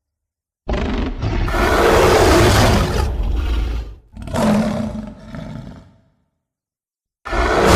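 Giant gorilla monster roar sound effect: a long roar, a second shorter roar, then a third roar starting near the end.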